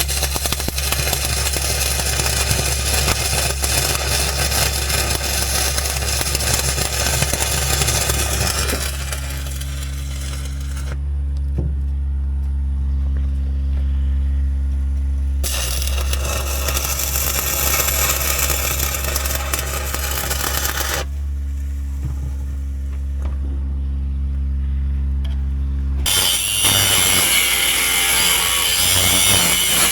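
Arc welding crackle in three long runs of a few seconds each, stopping for pauses about 9 to 15 seconds in and about 21 to 26 seconds in. Under it, an engine-driven welder's engine runs steadily.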